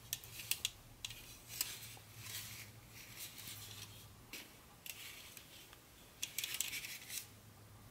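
Stacked plastic-roadbed HO-scale curved track sections clicking and rattling against each other as they are handled and pulled apart, with a busier clatter about six seconds in.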